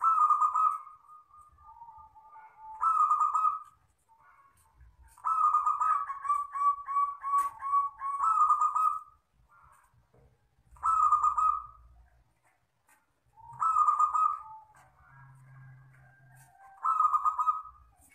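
Zebra dove (perkutut) cooing: six phrases of clear coos, one every few seconds, the middle one longest, with a run of quick repeated notes, in the long, clear 'kristal' style of song.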